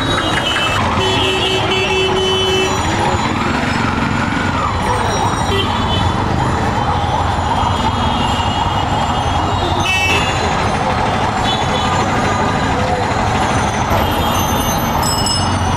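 Busy street traffic: a steady din of engines and passing vehicles, with a short steady tone sounding about a second in.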